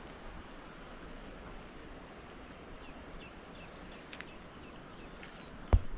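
Steady rushing of a large stream, with an insect's thin, steady high-pitched drone and a few faint bird chirps over it. A single sharp knock near the end.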